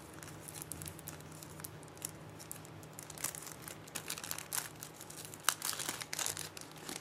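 Small clear plastic bag crinkling and sticky tape peeling as fingers work screws out of it: a string of irregular crackles.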